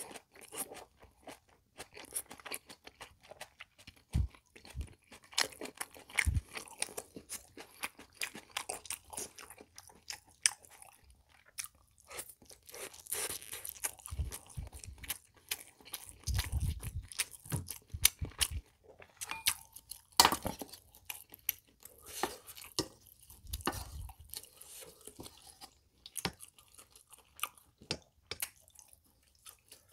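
Close-miked chewing of a mouthful of pork, kimchi and tofu from kimchi stew: wet, crunchy mouth sounds that come and go, with a few sharper clicks and knocks along the way.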